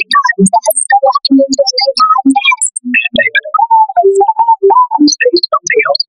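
A fast run of short synthesized notes that follows the rhythm and pitch of a spoken voice line, a cartoon character's line remade as synth 'water sounds'. A few notes slide and bend in pitch in the middle.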